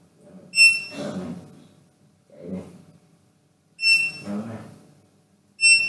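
Touchscreen HMI panel's buzzer giving three short high beeps, a few seconds apart, as its on-screen buttons are pressed, the touch confirmation while the M0 and M1 bits are toggled on the PLC.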